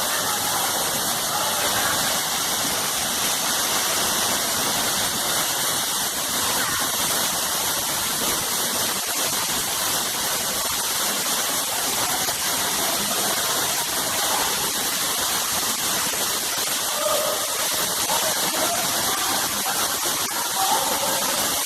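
Waterfall cascading steadily: an even, unbroken rush of falling water.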